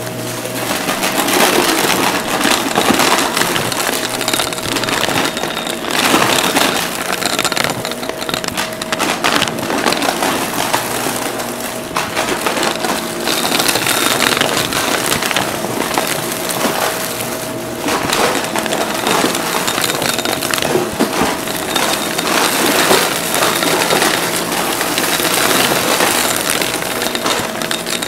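Upright vacuum cleaner running steadily on a rug, its motor giving a constant hum with a steady tone, under a dense stream of small clicks and crackles as confetti and glitter are sucked up the nozzle.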